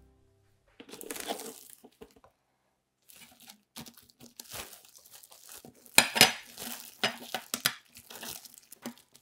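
Plastic cling film rustling and crinkling as it is stretched over a stainless steel pastry ring and pressed and pulled tight around the rim. A short rustle comes about a second in, then an irregular run of crackles, loudest about six seconds in.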